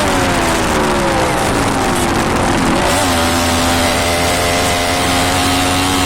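Yamaha RX100's single-cylinder two-stroke engine, its revs falling away for about three seconds, then a quick blip of the throttle and steady running at a fast idle.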